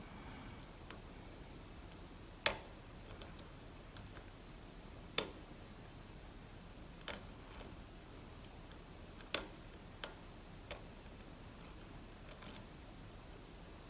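Small metallic clicks of a lock pick and tension wrench working the pins of an Assa Abloy Arrow lock: about eight sharp, irregular clicks, a few of them louder, over faint room tone.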